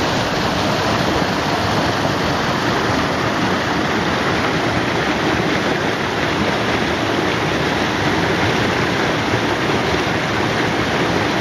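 Steady rush of water in a rocky mountain creek, poured over a small drop into a foaming pool and running over boulders.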